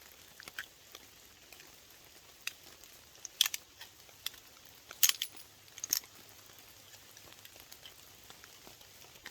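Light rain patter with a handful of sharp, light clicks and taps scattered through it, several close together a little past halfway.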